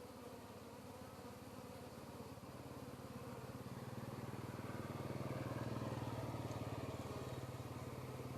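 A small engine running with an even low hum, growing louder from about three seconds in and then holding steady.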